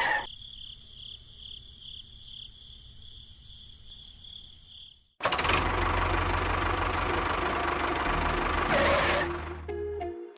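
Small motor running: first faintly, with a high whine that pulses about four times a second, then after a sudden cut a louder, steady running noise with a low hum that fades near the end.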